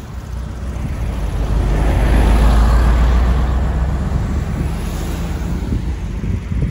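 Wind rushing over the microphone of a moving moped, with a large bus passing close by in the other lane. Its low rumble swells to a peak two to three seconds in, then fades.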